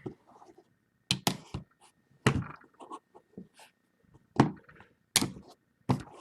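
Scattered light clicks and knocks of hard plastic card holders being lifted out of a card case, about eight separate handling sounds with quiet gaps between.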